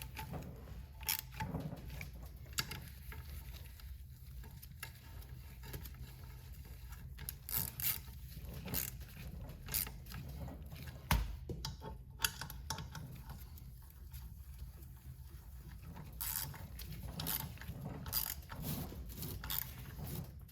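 Scattered light clicks and taps of hand tools and metal parts as a diesel turbocharger's housing is bolted back together, over a low steady hum.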